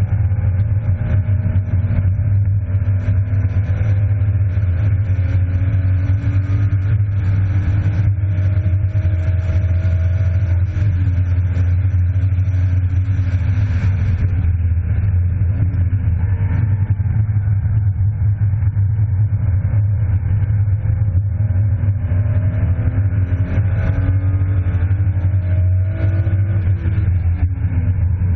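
BMW E36 325i's 2.5-litre straight-six at hard track pace, heard from inside the cabin over a heavy, steady low rumble. The revs climb through the first ten seconds or so, fall away a little after that, and climb again near the end.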